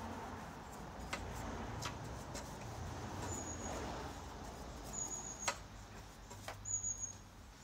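Aerosol brake cleaner being sprayed onto the old chainsaw guide-bar nuts to loosen them: a soft, even hiss through the first five seconds, with a few sharp clicks of the can and brush against the metal.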